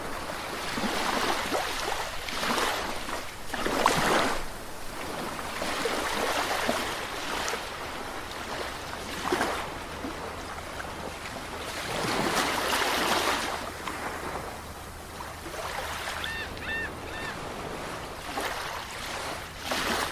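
Sea waves breaking and washing up, the surf swelling and falling every few seconds. Three short high chirps come about two-thirds of the way through.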